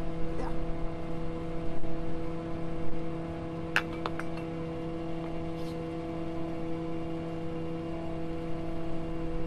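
Well service truck's engine running steadily, a constant hum with low rumble. Two sharp metallic clinks about four seconds in.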